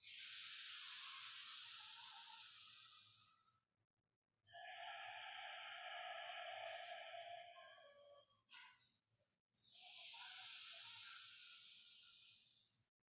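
A woman's slow, deep breathing in a full-lung wave-breath exercise: a long hissing breath in, a long open-mouthed sighing breath out, a brief sniff, then another long breath in.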